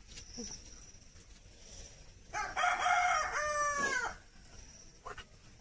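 A rooster crowing once, a call of nearly two seconds beginning a little before the middle, its pitch falling away at the end.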